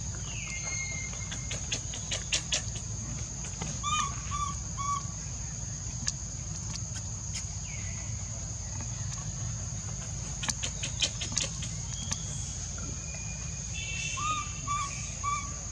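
Outdoor forest sound: a steady high-pitched insect drone, with short chirping calls repeated in quick runs of three, twice, and scattered sharp clicks and ticks.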